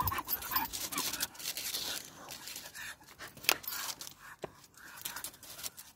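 Patterdale terrier cross panting and scuffling about on its lead, with scraping noises and a few sharp clicks, as it hunts along wooden decking on the scent of a rat.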